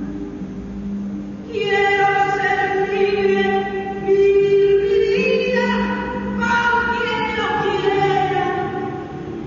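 A woman's voice singing long, held notes of a slow melody over a low, steady accompaniment. The voice comes in about one and a half seconds in.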